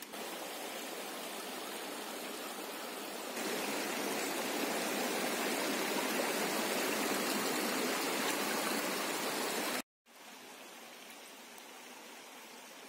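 Rocky river water flowing and rushing steadily. It grows louder about three seconds in, breaks off for a moment near ten seconds, then comes back quieter.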